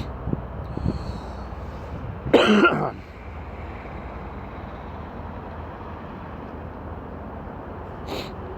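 A man coughs once, loudly and briefly, about two seconds in, over a steady low background hum.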